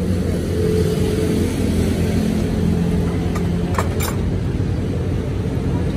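A steady low engine rumble, with a few short sharp clicks about three and a half to four seconds in.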